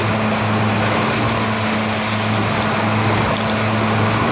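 Motorboat engine running at a steady cruising speed of about 22 miles an hour, a constant low drone, over the rush of wind and water past the hull.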